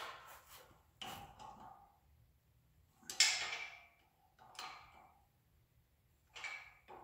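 Metal tools and steel bolts clinking and rattling against a front-suspension spindle as M12 Allen-head bolts are fitted with a hex wrench, in about five short bursts, the loudest about three seconds in.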